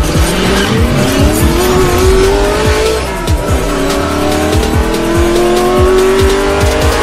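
An intro sting of electronic music with a fast, heavy beat, laid over a race-car engine sound effect. The engine rises in pitch as if accelerating through a gear up to about three seconds in, drops, and climbs again near the end.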